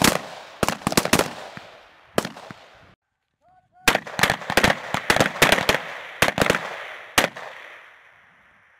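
Rifle fire from several shooters: irregular single shots, some in quick succession, each with an echo trailing off. The shooting breaks off about three seconds in and resumes denser a second later, then fades near the end. The rifles seen firing are HK G36s.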